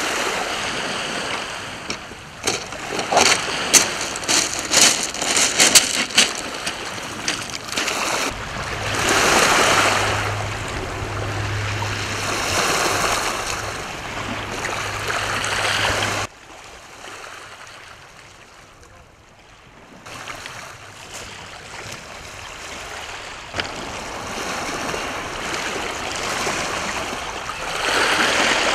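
Small sea waves washing on the shore, with wind on the microphone, the sound changing abruptly between shots. A quick run of sharp clicks comes a few seconds in, and a low steady hum runs through the middle and stops suddenly.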